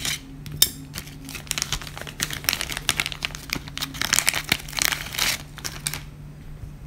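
Thin plastic zip-lock parts bag crinkling and rustling as it is handled in the hands, in dense irregular crackles that stop about six seconds in.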